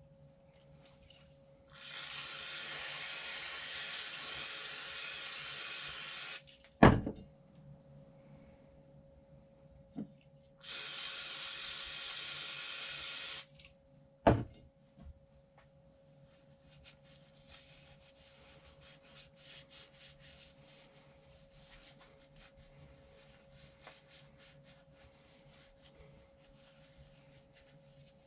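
Two long hisses of pressurised spray, each starting and stopping abruptly, the first about four and a half seconds and the second about three. Each is followed by a sharp knock, like a part or can set down hard. After that come faint rubbing and ticking of small parts being handled.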